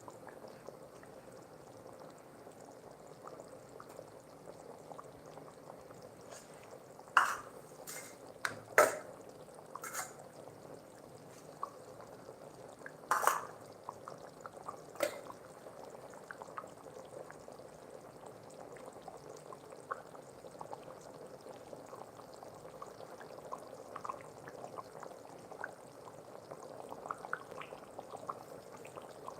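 Liquid bubbling in a cooking pot as chicken curry simmers, with small crackles throughout. About half a dozen sharp clinks of a utensil against the pot come between about seven and fifteen seconds in.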